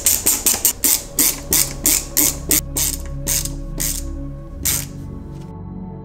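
Ratcheting screwdriver clicking as a screw is driven into the RC car chassis, with a quick, even run of clicks at about four a second. The clicking slows and stops about five seconds in. This is the clicking the builder likens to a duck laughing as you tighten.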